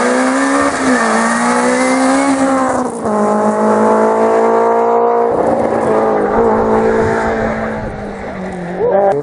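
Peugeot 206 rally car's four-cylinder engine running hard at high revs on a tarmac stage, its note held high with small shifts in pitch. The sound jumps abruptly twice, about three and five seconds in.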